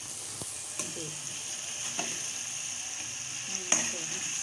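Tomato and chili masala sizzling in ghee in a metal pan as it is roasted (bhuna), stirred with a spoon. The spoon scrapes and clicks against the pan a few times, most sharply near the end.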